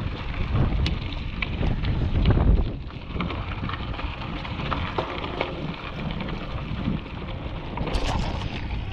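Wind buffeting the microphone of a mountain bike's action camera, heaviest in the first three seconds, over the crackle and crunch of knobby tyres rolling on a dirt and gravel singletrack, with small clicks and rattles from the bike.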